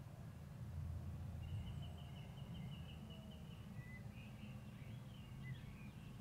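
Small birds singing: a fast trill of repeated high notes lasting over a second, then scattered chirps and short downward-slurred notes, over a steady low rumble.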